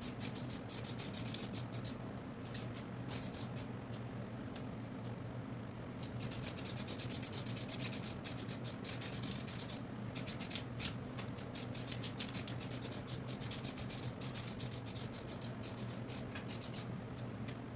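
Hand sanding: sandpaper rubbing over the dash pad's surface in quick back-and-forth strokes, with a few short pauses, over a steady low hum.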